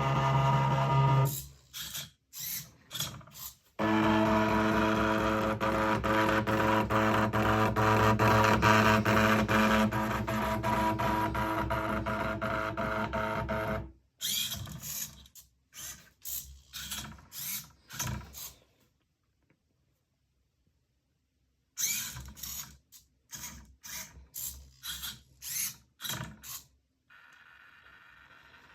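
Small electric motors of a 3D-printed Arduino robot running in short whirring bursts, stopping and starting as the robot moves. A steady hum made of several held tones fills about ten seconds in the first half.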